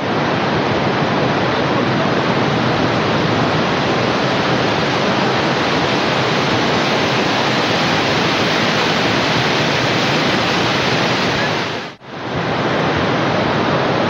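Steady rushing noise of a river in flood, with a brief break about twelve seconds in before the same rush resumes.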